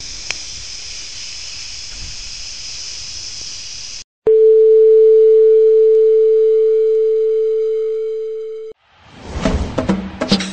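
Television static hiss, then, after a brief break a little past four seconds, a single steady test-pattern tone, the loudest sound here, that weakens slightly and cuts off suddenly. Near the end, music with quick clicking percussion fades in.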